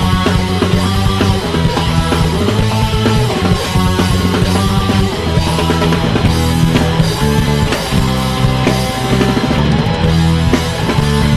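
Rock band playing: guitars and bass over drums in a steady, dense instrumental passage, on an old tape recording of poor quality.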